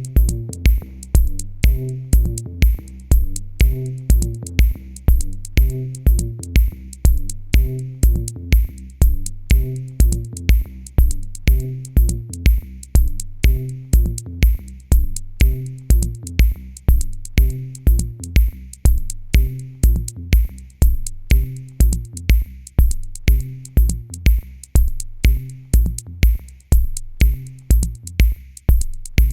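Electro dance music: a drum-machine kick drum beating steadily at about two beats a second under a repeating synth bass line and high ticking percussion.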